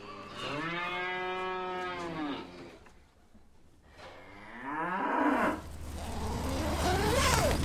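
Cattle mooing close by: three long moos, the first holding an arching pitch for about two seconds, the next two sliding down in pitch.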